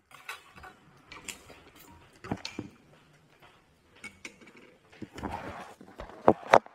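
Scattered light clicks and knocks of tableware at a meal: bowls, chopsticks and glass being handled. A couple of louder knocks come about two and a half seconds in and again near the end.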